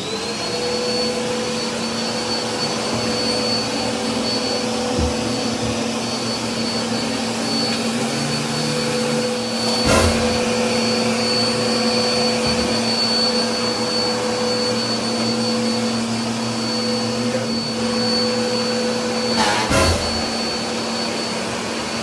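Vacuum cleaner switched on, its motor whine rising quickly to speed and then running steadily, with two sharp knocks against it, one about ten seconds in and one near the end.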